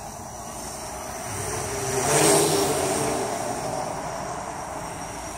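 Homemade DJI F450 quadcopter's propellers buzzing in flight, swelling to their loudest about two seconds in, then easing off.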